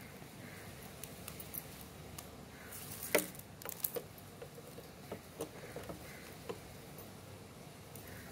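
Plastic basket-weaving strips rustling and clicking against each other as hands pull and tuck them into a knot, with one sharper click about three seconds in.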